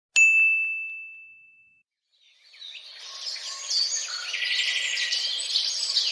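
A single bright ding that rings out and fades over about a second and a half, then, after a short silence, a separate clip of birds chirping fades in and carries on.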